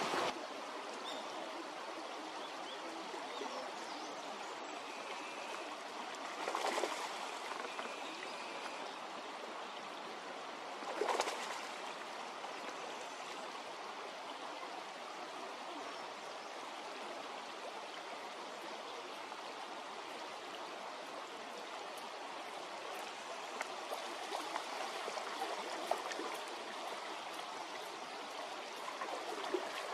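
Shallow stream water flowing steadily, with two brief louder splashy surges, about 7 and 11 seconds in.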